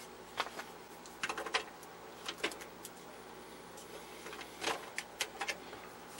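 Scattered light clicks and small scrapes of hands handling small test gear, in a few quick clusters, over a faint steady hum.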